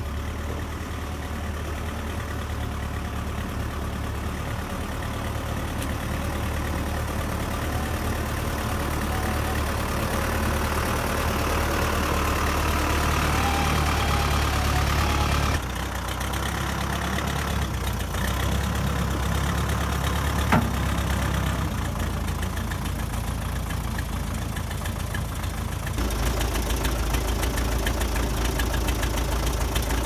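1980 Case 580D backhoe's diesel engine running, growing louder over the first fifteen seconds as the machine works toward the firewood pile, then idling steadily at a lower level. A single sharp clunk comes about twenty seconds in.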